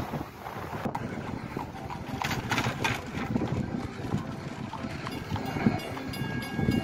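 A horse's hooves clip-clopping on the road as a horse and buggy crosses the tracks, over wind on the microphone. Near the end faint steady tones come in as the crossing signal starts up.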